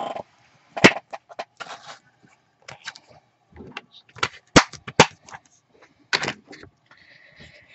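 A clear-mount stamp set in its plastic packaging being handled on a craft mat: crinkling and rustling of plastic sheets, with several sharp clicks and taps, the loudest about a second in and twice around the middle.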